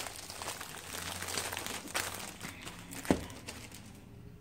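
Clear plastic sleeve crinkling as a rolled diamond-painting canvas is worked out of it. About three seconds in there is one sharp knock as the roll is set down on the wooden floor.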